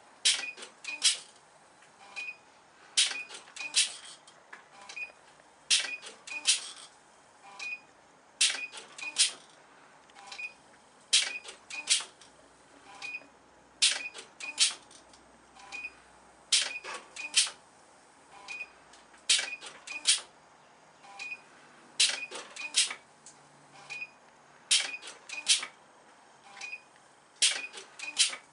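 CNC selective-soldering machine working joint by joint: a cluster of sharp mechanical clicks about every three seconds, in a steady repeating cycle, with brief high tones between the clusters.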